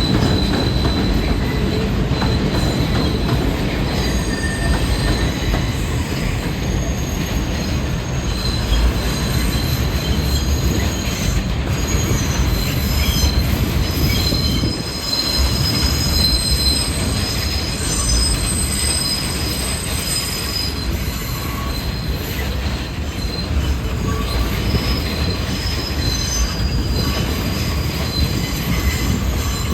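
New York City subway train running through the station on steel rails: a steady low rumble, with the wheels squealing in thin high tones that come and go, and a short drop in level about halfway through.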